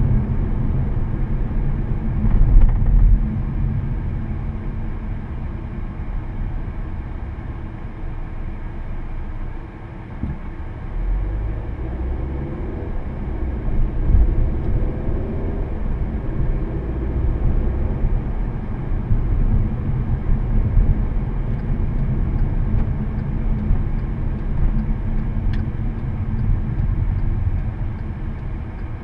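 Inside a 2014 Volkswagen Passat 1.8T on the move: steady low road and tyre rumble with the turbocharged four-cylinder engine underneath. The sound eases about ten seconds in, then the engine note climbs again as the car speeds up.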